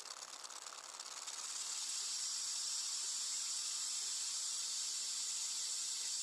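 Steady hissing rush of exhaust gas from a just-started Ford 6.7 L Power Stroke diesel, blowing a cloud of white vapour past the microphone. It grows louder about a second and a half in, then holds steady.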